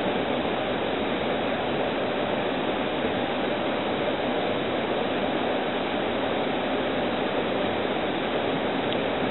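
Steady rushing and rumbling of a moving Amtrak passenger train, heard from inside the passenger car.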